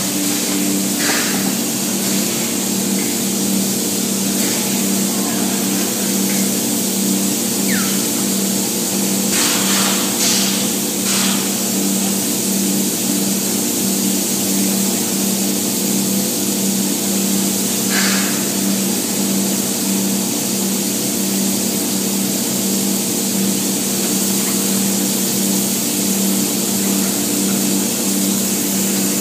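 Spray-foam equipment running: a steady machine hum with an even hiss, and a few short, louder hisses along the way.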